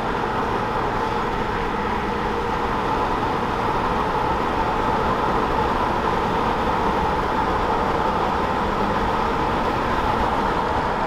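Steady engine and road noise inside the cabin of a 1999 Land Rover Discovery 2, its TD5 five-cylinder turbodiesel pulling along at a constant speed with the faulty automatic gearbox holding fourth gear.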